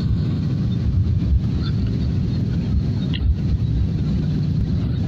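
Airliner cabin noise heard from a passenger seat during the approach to landing: a steady, loud low rumble of jet engines and airflow.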